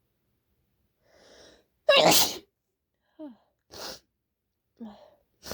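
One loud human sneeze about two seconds in, after a short in-breath, followed by a few small breaths and brief vocal sounds. It is one of a run of sneezes with a runny nose that the sneezer puts down to allergies or a cold.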